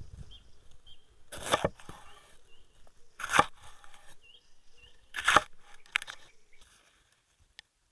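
Three short rasping strokes about two seconds apart, from food being worked by hand during meal preparation.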